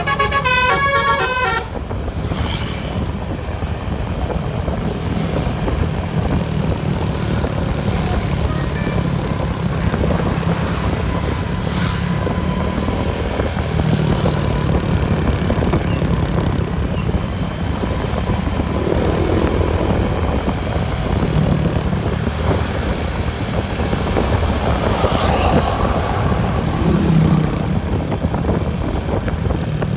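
A bus's Basuri 'telolet' multi-tone horn plays a quick tune of changing notes, cutting off about a second and a half in. After it comes a steady, loud rumble of vehicle engines.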